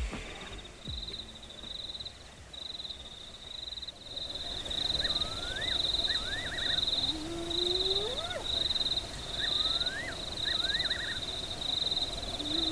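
Night chorus of insects trilling in a steady, pulsing high buzz, with repeated short rising chirps. A spotted hyena gives a long rising whoop about seven seconds in and starts another near the end.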